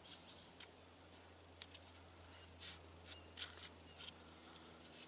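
Faint, short scrapes and rubs of a tool being worked under the edge of willow bark to loosen it from the branch, a stroke or two every second or so.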